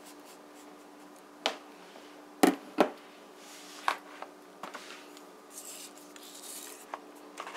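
Light kitchen handling sounds: a few soft clicks and knocks from hands and dishes on a ceramic plate of brown sugar, the two loudest close together about two and a half seconds in, over a faint steady hum.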